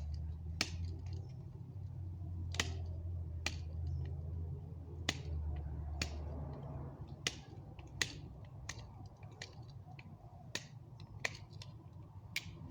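Pocket knife cutting small shavings from a wooden hand-drill fireboard: irregular sharp clicks, roughly one a second, as the blade bites through the wood, over a low rumble that stops about halfway through.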